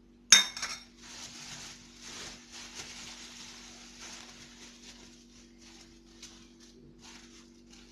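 A metal spoon strikes a cooking pot once with a sharp, ringing clink, then scrapes and rustles for a few seconds as chopped celery is spooned in, followed by a few lighter clicks.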